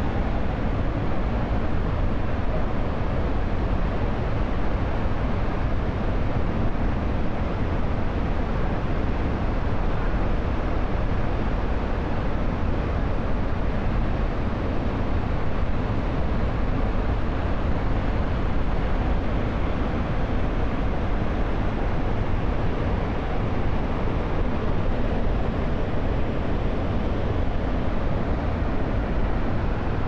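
Steady, loud rushing noise of Jog Falls, many broad streams of the Sharavati river plunging in heavy flow, strongest at the low end and unchanging throughout.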